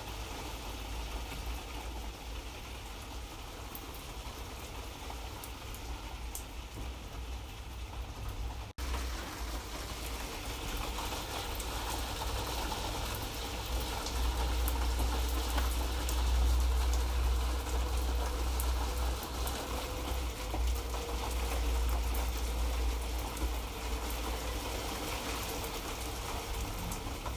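Light rain falling, a steady even hiss with a low rumble underneath. The sound drops out for an instant about nine seconds in, then returns a little louder.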